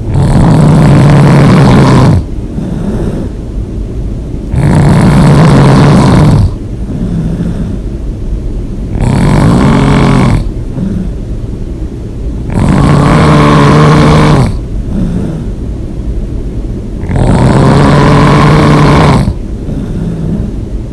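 A person snoring loudly: five long snores about four seconds apart, each lasting about two seconds, with quieter breathing between them.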